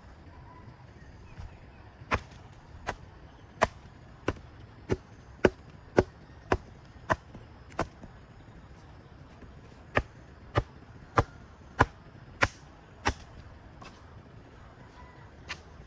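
Repeated sharp strikes of a hand tool, about one and a half a second: ten in a row, a pause of about two seconds, then six more.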